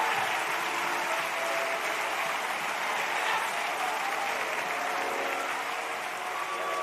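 A large church congregation applauding steadily, many hands clapping at once.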